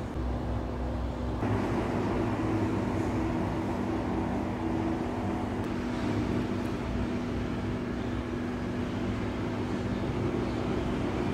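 A steady low mechanical hum with a constant low tone running under it, no distinct knocks or clicks; the hiss grows slightly fuller after about a second and a half.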